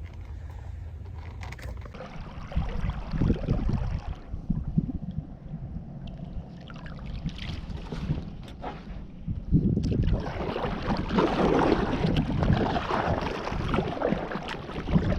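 Rushing, splashing noise on the water over a steady low rumble, the kind heard from a small boat moving on a lake; it grows louder about two and a half seconds in and louder again about ten seconds in.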